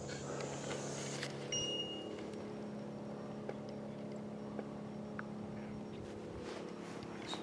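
Steady low mechanical hum in the background, with faint knocks and clicks of the camera being handled and moved, and one short high beep about one and a half seconds in.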